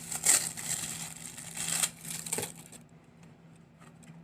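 Gift packaging rustling and crinkling as it is handled and opened by hand, busiest in the first two seconds, then tailing off to a few small rustles.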